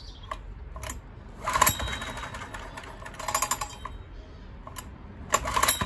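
Honda EX1000 generator engine running rough on choke, surging in three bursts about every two seconds with short sharp pops between them. It is struggling to run cleanly after being overloaded, with popping the owner puts down to backfiring through the carburetor.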